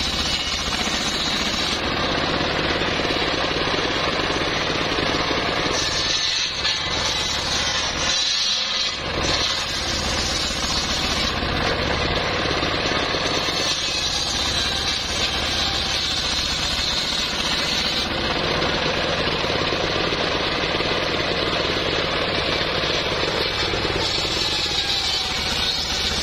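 Engine-driven homemade circular saw running steadily, its large blade ripping lengthwise through a teak log, a loud continuous machine drone with a hissing cutting noise on top. The noise dips briefly twice, about six and nine seconds in.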